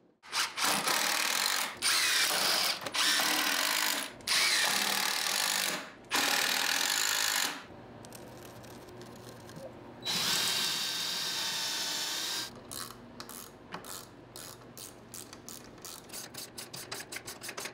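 Power drill driving screws into pine blocks on the stand's legs, in several runs of one to two seconds each, then a further run that starts with a rising whine after a short pause. In the last few seconds, a rapid series of ratchet clicks as a caster is fastened down.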